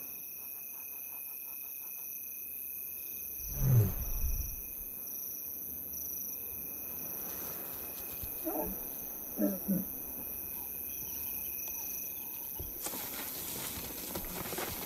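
Lioness giving a soft, low call about four seconds in, then short higher calls twice near the middle: contact calls telling the cubs it is safe to come out.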